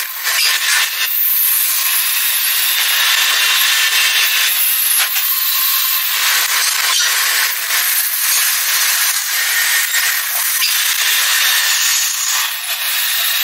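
Continuous high, rasping scrape of metal being abraded as a truck brake cylinder part is worked, swelling and easing slightly.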